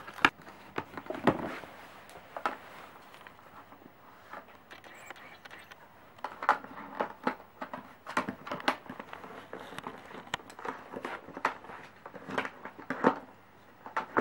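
Cardboard snack box knocking and scraping in irregular bursts: first handled by hand as it is closed, then nosed and shoved across a floor mat by a Pembroke Welsh corgi, with dense bumps in the second half.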